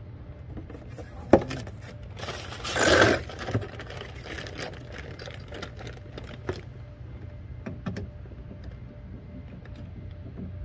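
Clinks and clicks of a hand tool working at a car door's bare metal inner frame, with one sharp click and then a louder rattling scrape about two to three seconds in, followed by scattered lighter ticks.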